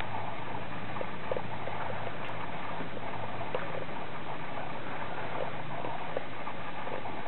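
Steady background hiss with a low hum, and a few faint light taps from bulldog puppies scampering on stone paving.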